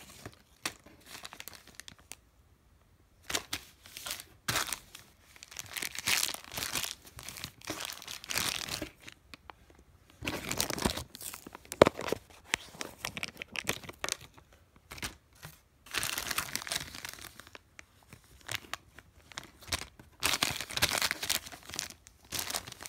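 Clear plastic packaging bags being handled by hand, crinkling and tearing in irregular bursts with short pauses. One sharp click comes about halfway through.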